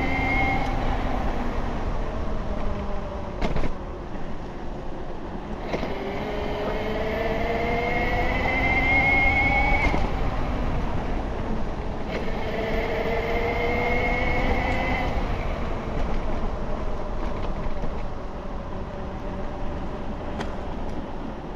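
Bafang BBSHD mid-drive e-bike motor, run at 72 volts, whining and rising in pitch as the bike accelerates, three times, each whine cutting off when the power is let off. A steady low rumble runs underneath.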